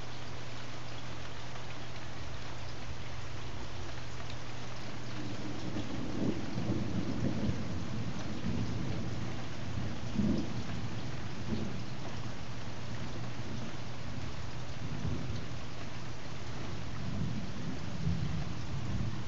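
Thunderstorm: rain falling steadily while thunder rolls in low and rumbling about a quarter of the way in, peaking near the middle, with further rumbles toward the end.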